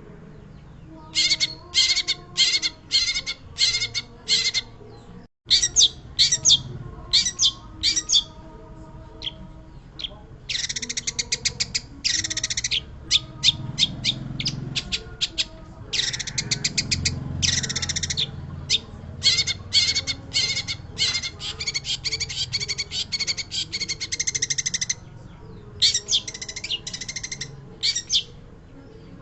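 Long-tailed shrike (pentet) singing hard: runs of rapid, scratchy chattering notes lasting a second to several seconds, separated by short pauses. The sound cuts out completely for a moment about five seconds in.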